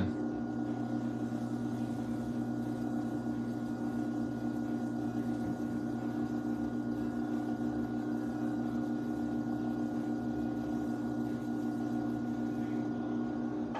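Electric potter's wheel running, its motor giving a steady hum with a faint high whine.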